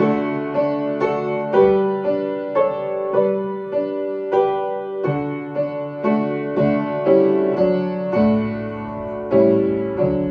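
Piano music, notes and chords struck about twice a second.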